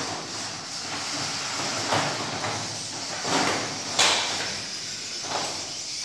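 Remote-controlled competition robots driving on a tabletop field, their motors and wheels whirring in several short noisy bursts. About four seconds in there is a sharp, loud noise that dies away within half a second.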